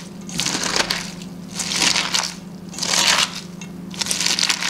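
Hands squeezing and kneading salted shredded cabbage and carrot in a stainless steel bowl, a wet crunching with each squeeze, four squeezes about a second apart. The salt water is being worked into the vegetables to soften them for kimchi.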